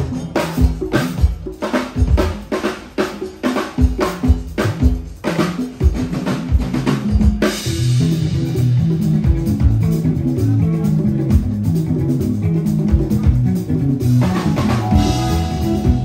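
Sound check: a drum kit is struck in sharp, separate hits, kick and snare. About halfway through the band joins, with a Fender electric bass playing a busy low line under the drums, and a higher instrument enters near the end.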